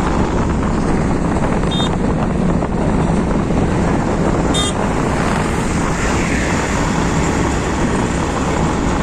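Steady road and wind noise from a vehicle driving along a highway, the engine and tyres running evenly with wind rushing over the microphone.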